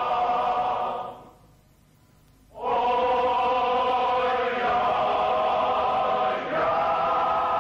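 Men's choir singing slow, held chords. About a second in, the chord fades out into a short pause, then all the voices come back in together and move through two more chord changes.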